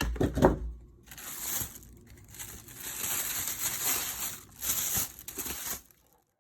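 Crinkling and rustling, like paper or plastic being handled, in uneven spells with short breaks, after a few knocks at the start.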